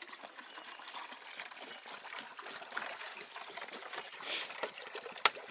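A calf suckling milk: wet trickling and slurping with many small clicks, and one sharp click near the end.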